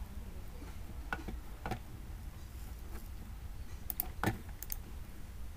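A handful of separate clicks from a computer keyboard and mouse, over a low steady hum. There are two clicks a little over a second in and a quick cluster about four seconds in, as the file is saved and the browser is brought up.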